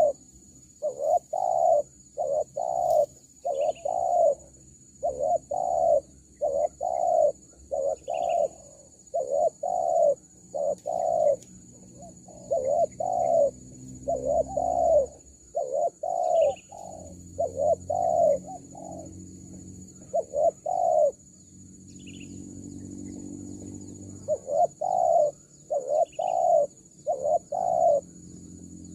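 Spotted doves cooing: a long run of short, mellow coos in quick groups, pausing about three-quarters of the way through before starting again. A steady high hiss and a few faint, brief high chirps sit underneath.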